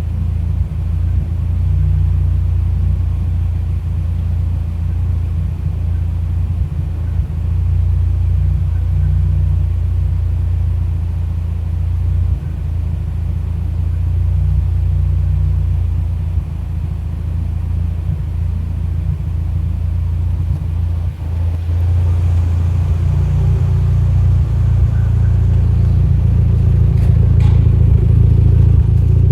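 Mitsubishi Lancer Evolution X's turbocharged four-cylinder engine idling with an uneven, stumbling rumble: a lean idle misfire. The sound gets a little louder about two-thirds of the way through.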